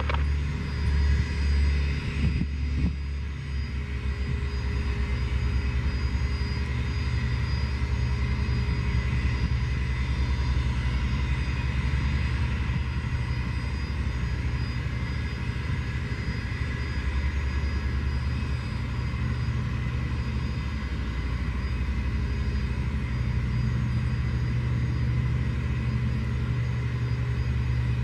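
Cessna Citation CJ2's turbofan engines idling, a steady whine over a low rumble.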